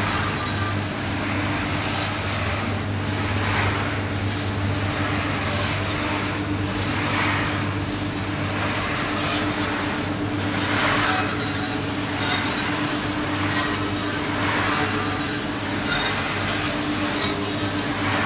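Chickpea (chana) roasting machine running: a steady motor hum, with roasted chickpeas rattling through the rotating drum and pouring out onto the chute in swishing surges every second or two.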